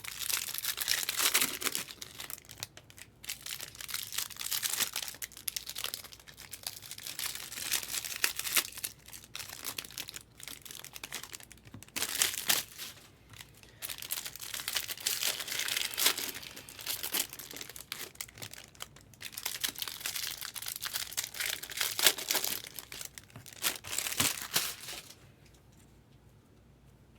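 Trading card pack wrappers being torn open and crinkled, in repeated spells of rustling that stop about 25 seconds in.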